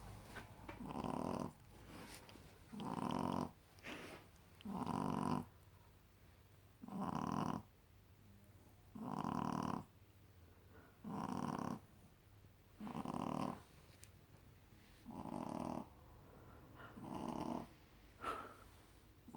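Shih tzu puppy snoring in her sleep, a snore about every two seconds, each lasting well under a second.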